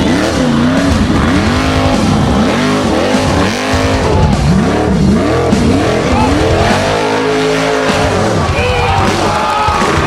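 Formula Offroad car's engine revving hard, its pitch surging up and falling back again and again, held high for a moment near the end.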